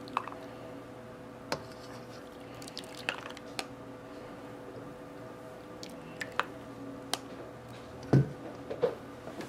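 Coffee punch with chunks of ice cream being ladled from a stainless steel bowl into a cup with a plastic ladle: soft squishing and dripping with scattered light clicks, and a dull knock about eight seconds in. A faint steady hum lies underneath.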